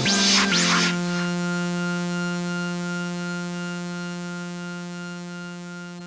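Electronic background music: a rising synth sweep, then a held synth chord that slowly fades away.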